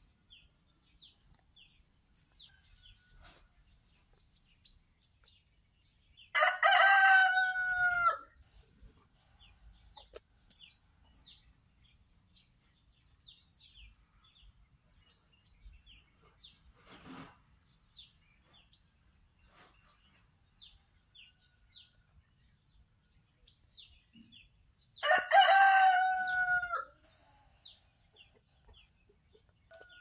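Domestic rooster crowing twice, each crow about two seconds long and well apart. Small birds chirp faintly in between.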